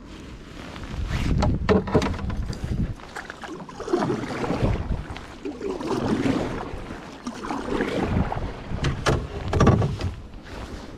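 Paddle strokes in the water, coming in surges about every two seconds, with wind on the microphone.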